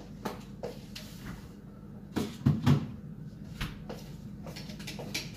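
Kitchen clatter from things being handled at a counter: a series of short knocks and clicks, the loudest a pair of dull thuds about two and a half seconds in.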